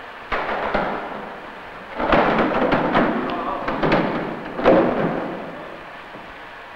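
Irregular knocking and rushing noise from fish-processing handling and machinery. It swells loudest about two seconds in and again near five seconds, then fades.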